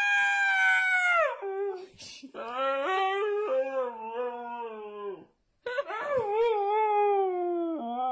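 Husky howling in three long drawn-out calls: a high, steady one, then a lower, wavering one, then one that slides down in pitch near the end.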